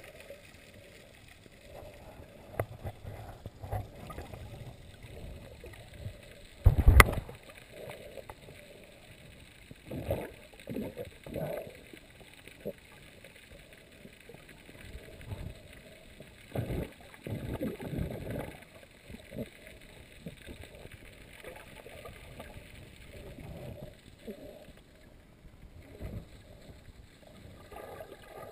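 Muffled underwater sound from a camera held under the sea: irregular sloshing and gurgling as the swimmer moves through the water, with one loud knock on the camera about seven seconds in.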